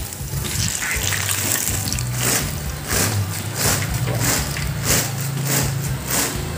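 Background music with a steady beat, over hot oil sizzling in a wok as fried banana pieces are tossed in a wire spider strainer.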